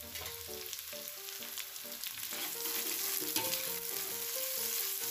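Sliced onions and chopped garlic sizzling in hot cooking oil in a stainless steel pot, stirred with a spatula that scrapes and taps against the pot. A soft background melody plays underneath.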